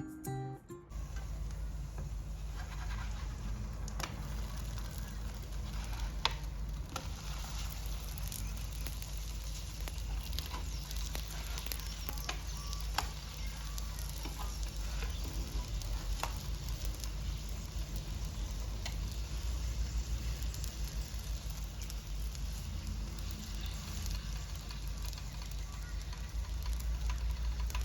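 Steady low hum with a faint hiss, broken by scattered small clicks and taps.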